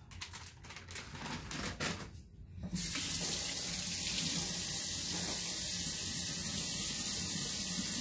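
Kitchen sink faucet turned on about a third of the way in, water running steadily into a stainless steel sink with hands working under the stream. A few light knocks come before it.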